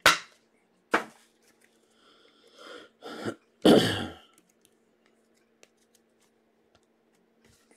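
A man coughing and clearing his throat several times, the loudest cough about four seconds in. Faint clicks of cards being handled come between them.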